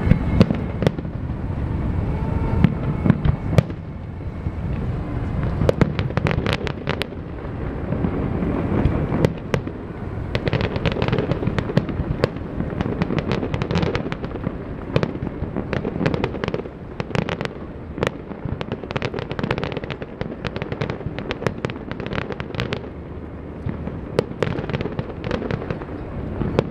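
Aerial fireworks display: shells bursting one after another with dense crackling over a low rumble, the bangs coming fastest from about ten seconds in.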